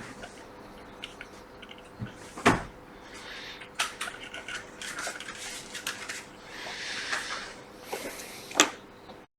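Sharp clicks and knocks of small tools handled at a repair bench, the loudest near the end, with short hissing bursts in between and a faint steady hum underneath; the sound cuts off abruptly just before the end.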